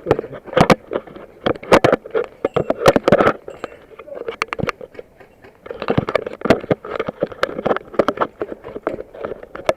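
Airsoft guns firing in irregular sharp snaps, single shots and short strings, over rustling movement.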